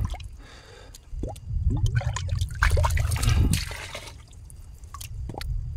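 Water splashing and trickling in a shallow spring-fed well pool as a cut bamboo tube is dipped in to fill with water, the splashing heaviest in the middle. A low rumble on the microphone runs under it.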